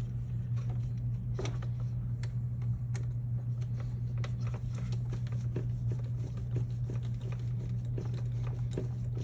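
Small scattered metallic clicks and taps as a nut is threaded onto a wire's ring terminal at the golf cart's charger receptacle and tightened with a small hand tool. A steady low hum runs underneath.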